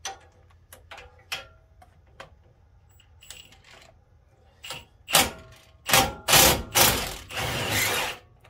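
Ratcheting gear wrench clicking as it works an 18 mm brake caliper bracket bolt loose: scattered single clicks at first, then from about five seconds in a run of louder, faster ratcheting strokes.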